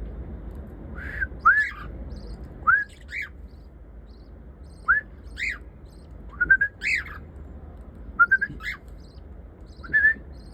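Small birds calling: short rising whistled chirps, singly or in quick runs of two or three, every second or two.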